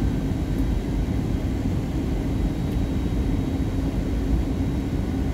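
Steady engine and airflow noise inside a passenger jet's cabin on approach to landing: a low rumble with a steady hum running under it.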